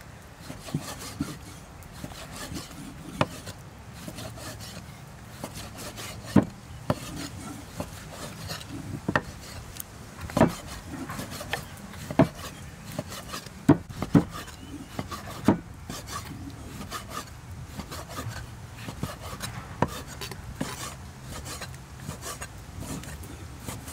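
Steel cleaver cutting raw tripe on a wooden chopping board: continuous scraping and rubbing of the blade through the meat, with irregular sharp knocks as it strikes the board.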